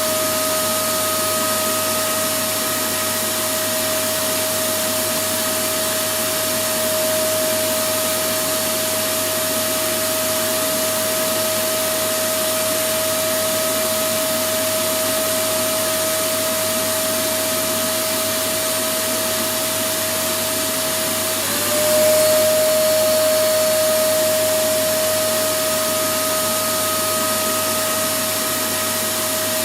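Electric vacuum cleaner running continuously: a steady rushing noise with a motor whine on top. About three-quarters of the way through, the whine dips for a moment and the sound swells louder, then settles back.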